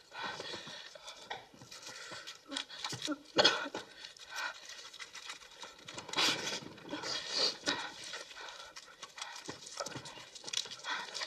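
Ragged, heavy breathing and sniffing of people in heroin withdrawal, with small clicks and scratching of a tool on a hard surface.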